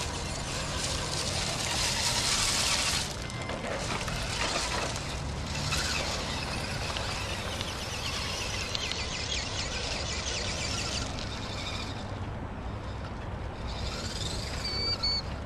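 Loose gravel crunching and clattering under the tyres of a radio-controlled rock crawler as it climbs over a stone pile, louder for a couple of seconds near the start.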